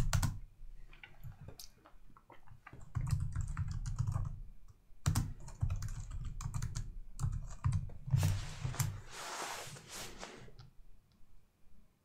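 Typing on a computer keyboard: irregular key clicks in short runs. A soft hiss lasts about two seconds near the end.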